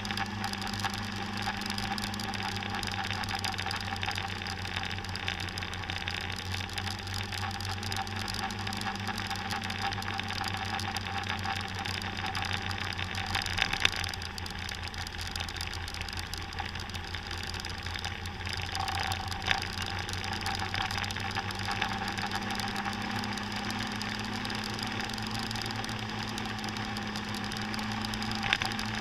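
Small scooter engine running while riding along, under a broad rush of road and wind noise. The engine note eases off about halfway through and picks up again later, with a couple of sharp knocks.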